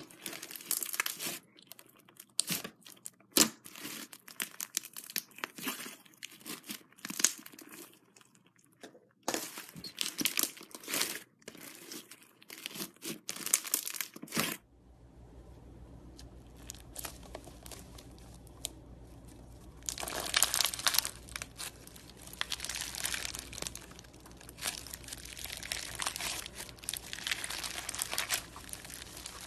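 White fluffy slime squished and kneaded by hand, giving many short sharp clicks and pops. About halfway through, a low steady hum sets in, and from about two-thirds of the way, clear slime packed with plastic beads is squeezed with a crunchy clicking.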